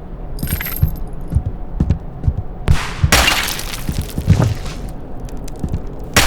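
Library sound effects of breaking and shattering: a brief high tinkle under a second in, then a big crash about three seconds in that lasts over a second, with another crash at the very end. Dull thumps come irregularly throughout.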